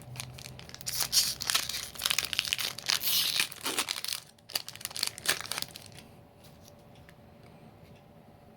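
Foil wrapper of a Magic: The Gathering booster pack being torn open and crinkled for about five seconds, followed by a few faint clicks.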